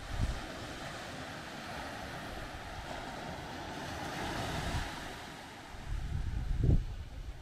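Surf washing onto a small sandy beach below, a steady rushing hiss. Wind buffets the microphone in low gusts just after the start and again near the end.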